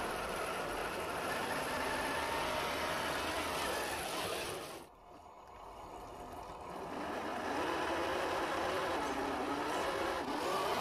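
A 1/10-scale RC crawler's brushed 550 electric motor and gearbox whirring under load, its pitch rising and falling, as the mud-caked tyres spin and churn through sticky mud. The sound drops away sharply about five seconds in, then builds again.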